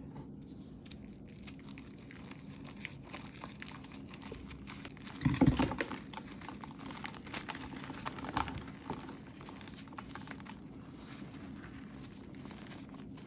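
Reformed gym chalk being crushed, crumbling with scattered small crackles; the loudest crunching comes about five seconds in, with another smaller burst about three seconds later.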